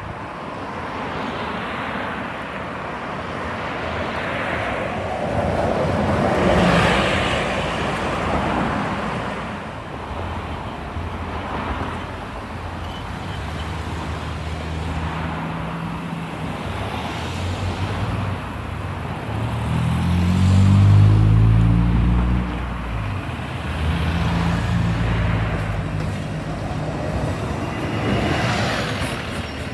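Street traffic with cars going by, then a city transit bus's engine pulling away, its pitch climbing as it accelerates about 20 seconds in, the loudest moment. Near the end the bus passes close by.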